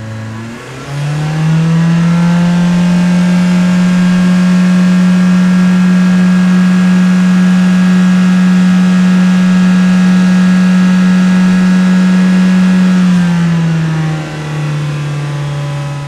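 Car engine driving: the revs rise in the first second or two, hold at a steady engine note for about eleven seconds, then drop about thirteen seconds in and settle at a lower, steady note.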